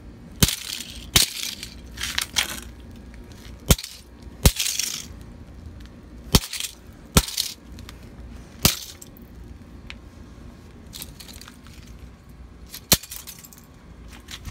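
A plastic pocket calculator being smashed against a concrete floor: about eight hard, sharp blows at uneven intervals, most of them in the first nine seconds with a last one near the end. Several are followed by a short high-pitched rattle.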